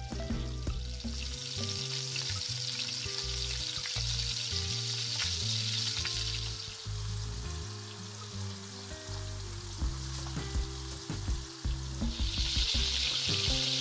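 Sliced onions sizzling as they fry in deep hot oil in a cast-iron pot, the sizzle strongest in the first half and again near the end. A little before the end, a metal skimmer clicks and scrapes against the pot. Background music plays underneath.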